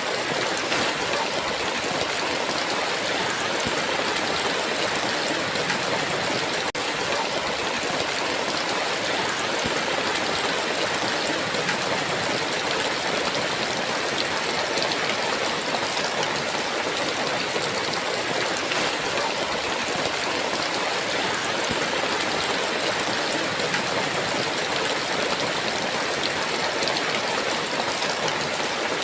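Heavy rain, a steady downpour with an even rushing hiss and no thunder.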